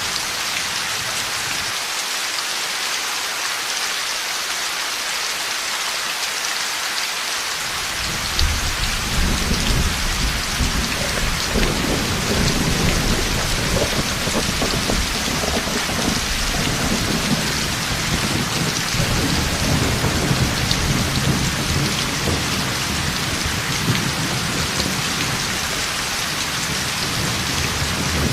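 Heavy rain falling steadily, with a low rumble of thunder breaking in suddenly about eight seconds in and rolling on, swelling and easing, for the rest of the time.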